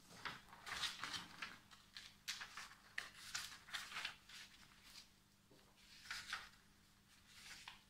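Thin notebook paper rustling and brushing as pages are handled and smoothed flat by hand: a run of soft, quick strokes that thins out after about four and a half seconds, with a few more near the end.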